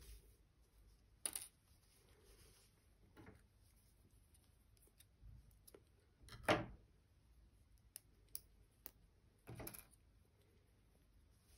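Faint handling noises: a few light clicks and short rustles as a knitted piece and its sewing tools are moved about, the loudest about six and a half seconds in.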